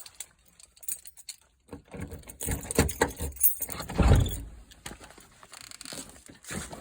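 Scrap items being handled: irregular clattering, rattling and light metallic clinks, with a heavier knock about four seconds in.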